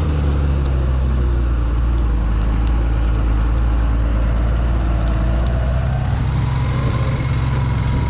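Motorcycle engine running steadily at low speed, a low, even drone.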